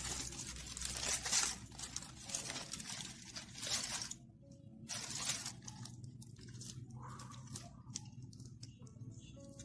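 Aluminium foil crinkling and tearing as it is pulled open by hand, in dense bursts for about four seconds that then thin out into scattered crackles.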